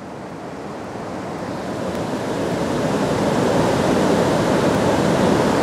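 Rushing wind noise over the open river, swelling steadily louder over the first few seconds and then holding.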